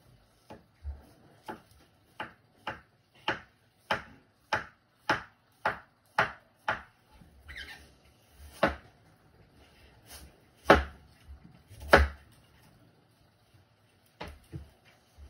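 Kitchen knife chopping a peeled bamboo shoot on a cutting board: about a dozen even chops at nearly two a second, then after a short pause a few harder, slower chops, the loudest about twelve seconds in, and a last couple near the end.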